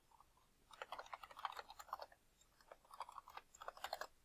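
Typing on a computer keyboard: two quick runs of keystrokes, each about a second and a half long, with a short pause between them.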